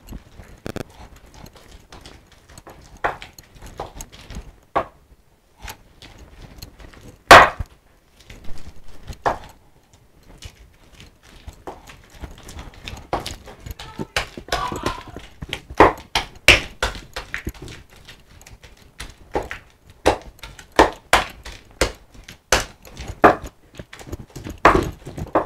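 Wooden pestle (tapoli) mashing ripe plantain in an earthenware grinding bowl (asanka): irregular knocks and taps of wood on the clay bowl, sparse at first with one loud knock about seven seconds in, then coming thicker from about halfway.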